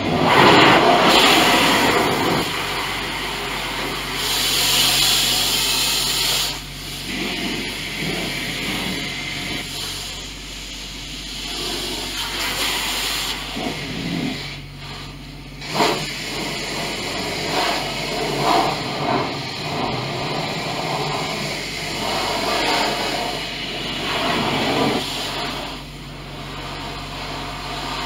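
Car engine running, heard from inside the cabin as a steady low hum under a shifting hiss of cabin noise, with one short knock about halfway through.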